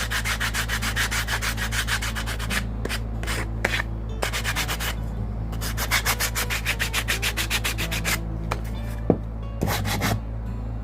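Sandpaper rubbed by hand over a small painted wooden block in quick back-and-forth strokes, about five a second, in three spells with short pauses between them. The sanding distresses the decoupaged surface to give it an aged look. A steady low hum runs underneath.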